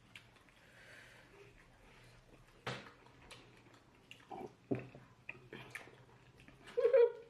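Mouth sounds of eating fufu with light soup: scattered wet smacks, slurps and clicks, with a short pitched hum-like vocal sound near the end.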